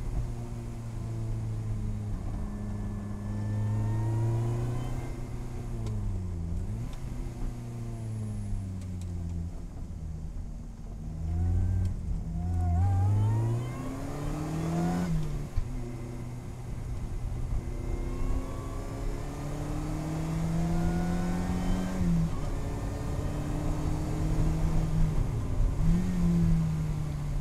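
Lotus Elise Cup 250's supercharged 1.8-litre four-cylinder heard from inside the cabin on a track lap. Revs climb steadily, then drop sharply several times at gear changes and braking, and pull up again out of the corners.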